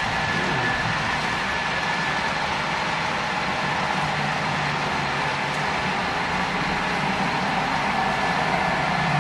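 Steady mechanical hum and rushing noise with faint whining tones, growing slightly louder near the end.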